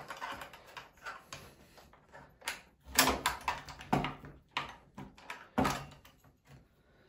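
Ryobi 3835 chainsaw's guide bar and chain being fitted onto the saw body by hand, plastic and metal parts knocking and clicking together. A string of sharp knocks, the loudest about three, four and five and a half seconds in.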